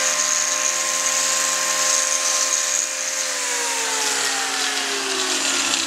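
Electric hoof-trimming grinder running at a steady whine, then switched off about three seconds in and winding down, its pitch falling steadily.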